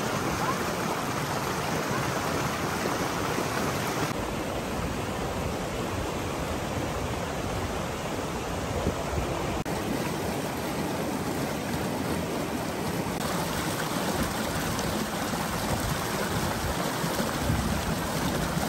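Shallow creek rushing and splashing over smooth granite slabs in a small cascade: a steady, even rush of water.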